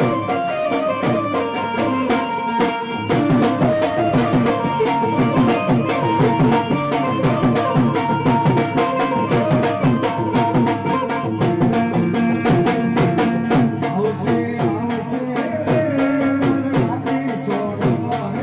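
Live devotional folk music: a harmonium holding sustained notes over a fast, steady hand-drum rhythm.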